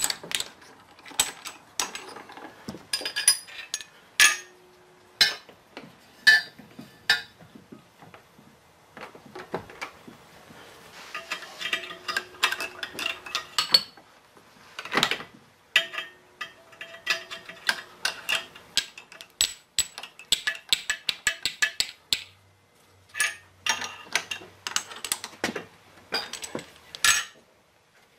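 Irregular metallic clicks and clinks of tools and parts being handled on a stopped drill press, with short sharp knocks scattered throughout.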